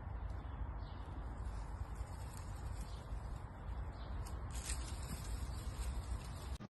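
Outdoor ambience: a steady low rumble of wind on the microphone, with a few faint rustles of tree branches about four and a half seconds in, as a cat leaps off the tree.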